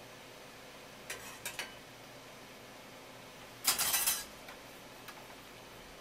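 Light clinks of tableware a little after a second in, then a louder, half-second clatter of dishes being handled near the middle.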